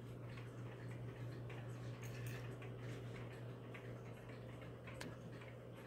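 Antique Gustav Becker regulator wall clock with a P-42 8-day movement ticking faintly and steadily, its pendulum escapement beating evenly, over a steady low hum.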